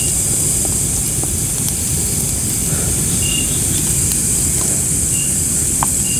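Wood campfire burning with a low, steady rush and a few faint crackles. Over it runs a constant high chorus of night insects, with short high chirps every second or two.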